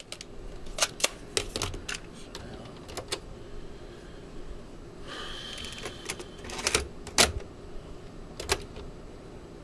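A string of mechanical clicks and clacks from a Lasonic TRC-922 boombox being handled: a cable plug pulled out, a cassette loaded into the deck and the transport keys pressed. The loudest clack comes about seven seconds in.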